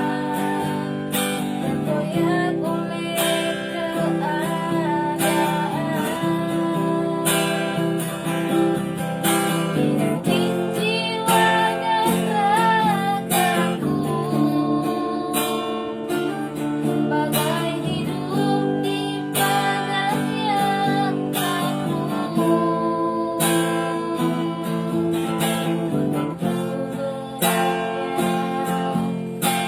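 A woman singing a slow melody with vibrato over strummed acoustic guitar.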